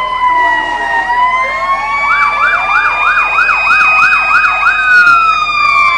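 Fire truck sirens sounding together: a slow wail gliding down and back up in pitch, joined from about two seconds in by a fast yelping siren rising and falling about three times a second for a few seconds.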